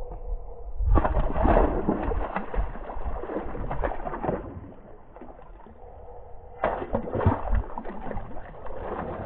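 Small bass splashing and thrashing at the water's surface beside the boat as they are dropped back in, in two bouts, the first about a second in and the second about seven seconds in. A faint steady hum runs underneath.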